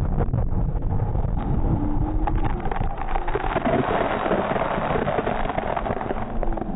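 Rushing water and spray washing over a water-ride boat just after its plunge down the big drop, with wind buffeting the microphone. The hiss of spray is heaviest about two to five seconds in.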